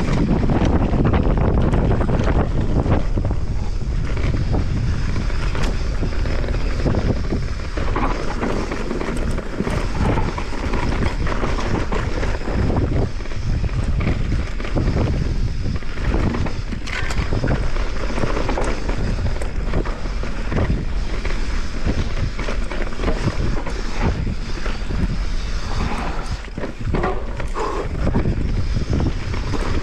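Wind buffeting the camera microphone at speed on a mountain-bike descent, with the Santa Cruz Megatower's tyres rolling over dirt and the bike rattling and knocking over rough ground.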